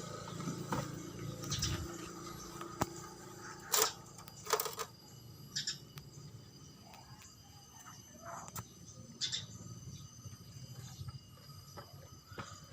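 Scattered light clicks and knocks, one every second or two, the loudest about four seconds in, over a faint steady hum.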